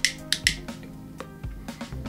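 Soft background music with steady held tones, under a few sharp clicks in the first half second and lighter ticks after. The clicks are a lighter being struck to relight a tobacco pipe.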